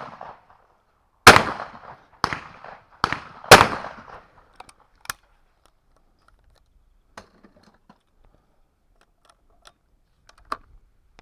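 Shotgun shots at clay targets: four loud shots within about two and a half seconds, each with a short echo, the first and last of them the loudest, then a fainter shot a little later.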